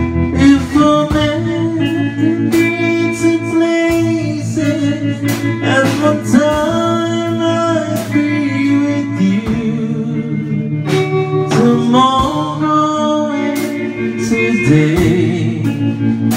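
Live band music: an electric guitar and a drum kit playing, with pitched melody notes that bend and slide over regular drum and cymbal hits.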